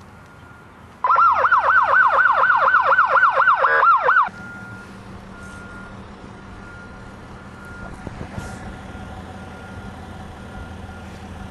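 Police siren on a Carbon Motors prototype patrol car, a fast yelp whose pitch sweeps up and down about four times a second, starting about a second in and cutting off suddenly some three seconds later. Afterwards a low steady hum and a faint repeating beep remain.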